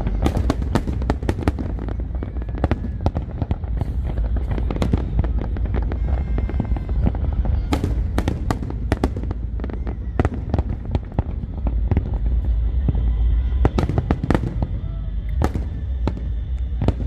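Fireworks display: rapid, overlapping cracks and bangs over a continuous low rumble of booming shells.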